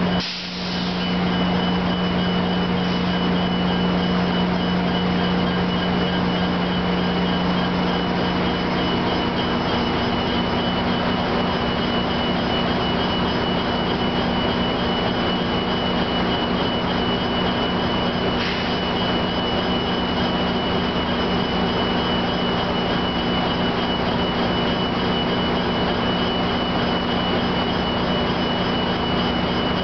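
Large engine drone running steadily at a constant pitch, with a low hum and a faint high whine; about ten seconds in, the hum's tone shifts slightly.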